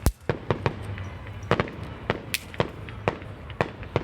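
Fireworks going off all around: an irregular string of sharp bangs and cracks, about three or four a second, with the loudest bang right at the start.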